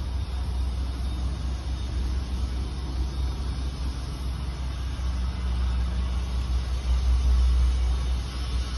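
Pressure washer running steadily: a low engine drone under an even hiss.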